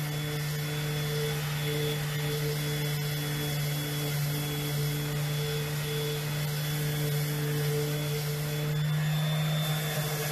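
Electric sander running steadily against the wood of a bench, a constant motor hum with a rasping hiss of the pad on the wood and a slow pulsing in its higher tones.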